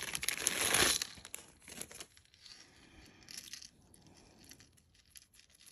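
Packaging crinkling and rustling as a piece of jewelry is unwrapped, loudest in the first second, then fainter crinkles and small clicks.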